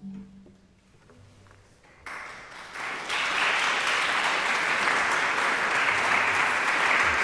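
A last low cello note dies away, then audience applause breaks out about two seconds in and quickly swells into steady, full clapping.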